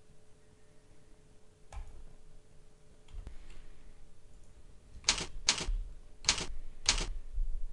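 Computer keyboard keystrokes as a number is typed into a spreadsheet-like cell: two faint clicks, then four sharp, louder key presses in quick, uneven succession in the second half.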